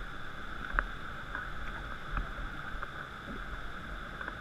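Steady rush of river rapids, with a few soft knocks, the clearest just under a second in.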